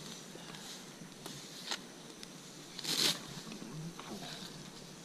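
Sweetgrass being pulled up by hand: rustling and swishing of grass blades, with a louder swish about three seconds in.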